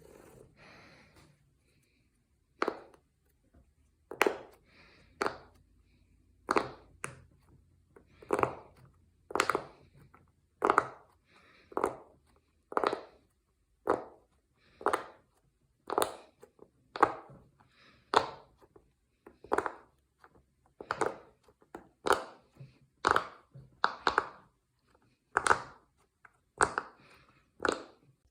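Silicone pop-it fidget toy bubbles being pressed one at a time, each giving a short sharp pop, about one a second.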